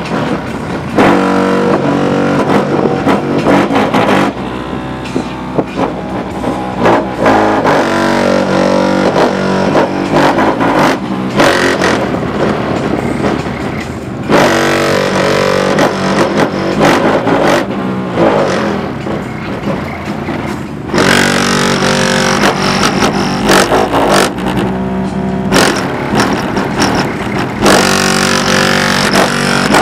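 Music played loud through a car's subwoofer audio system, driven by a Taramps SMART3 3000-watt amplifier set at half gain, heard inside the car.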